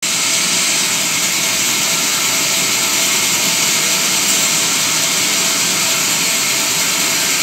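Large vertical band saw running: a loud, even, hissing machine noise that stays steady throughout.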